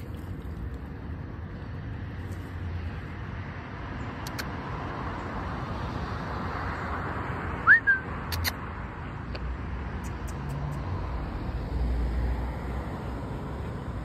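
Steady outdoor background noise of distant road traffic, swelling a little around the middle. A little past halfway comes one short, sharp rising whistle, the loudest sound.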